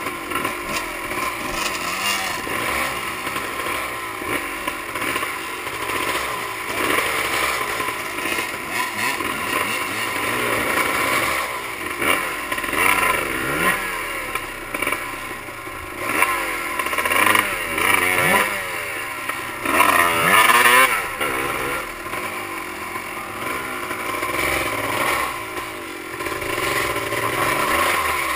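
Dirt bike engines climbing a steep trail, revving up and down again and again, with the loudest burst of throttle about twenty seconds in.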